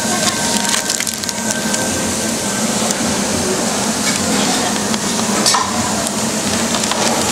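Paper burger wrapper crinkling and crackling as the burger and bun are handled on it, with scattered sharp clicks over a steady background din.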